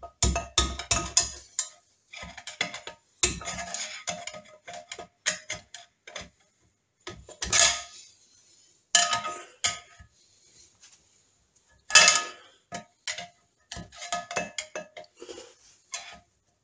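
Steel screwdrivers levering and scraping against a heated roller main bearing on a motorcycle crankshaft: irregular metal-on-metal scrapes and clinks with a faint ring, the loudest about halfway through and again a few seconds later. The tightly fitted bearing is not coming off.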